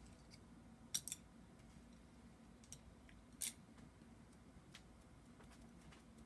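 Near silence broken by a few faint clicks and taps from handling paintbrushes and paint tubes: two close together about a second in and a sharper one a little past the middle, over a faint low hum.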